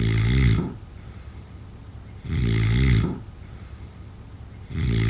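Snoring in a slow, regular rhythm: three snores about two and a half seconds apart, each under a second long. The last one runs on past the end.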